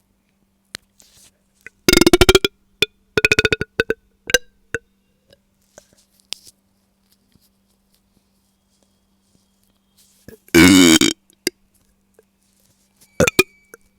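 A woman burping repeatedly from a bloated, gassy stomach, which she puts down to milk. Two loud, rattling burps come about two and three seconds in, then a small one, then after a pause a long burp, the loudest, about ten and a half seconds in, and a short one near the end.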